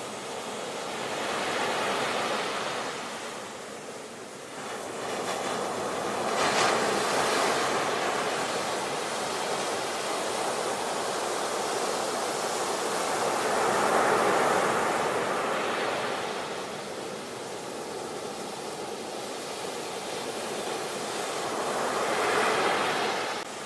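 Ocean surf washing up onto a beach: a steady rush of breaking water that swells and eases as each wave comes in and draws back, several times over. It drops off abruptly near the end.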